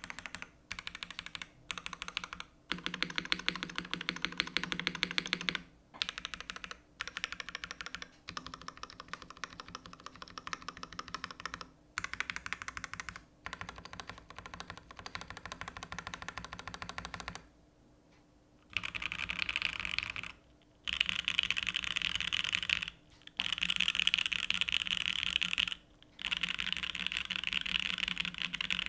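Typing on a TGR x GAF 910 PC mechanical keyboard with lubed Gateron Ink Black v2 linear switches, an aluminium plate and GMK keycaps. It types in quick, dense runs of keystrokes, broken by brief pauses, the longest about eighteen seconds in.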